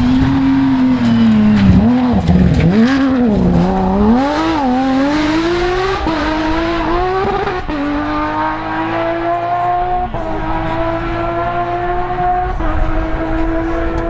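Porsche 997 GT3 rally car's flat-six engine at full throttle. The revs drop and rise sharply several times in the first few seconds, then the engine pulls away through three upshifts about two and a half seconds apart, the pitch climbing steadily between each.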